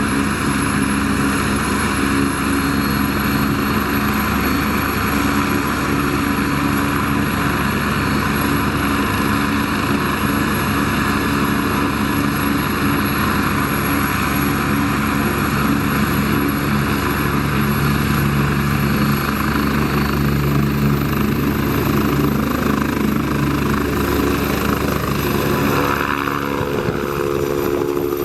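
Radio-controlled scale model helicopter (Eurocopter EC 135 replica) flying: a steady rotor and motor drone with a thin high whine that rises slightly near the end. About two seconds before the end the tone changes, with new mid-pitched tones coming in.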